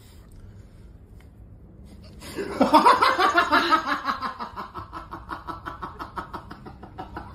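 A person bursting into loud, rapid laughter about two seconds in, the laugh pulsing several times a second and slowly fading.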